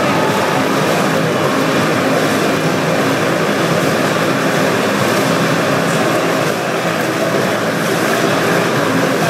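Motorcycle engines running hard and steady as riders circle inside a steel-mesh globe of death.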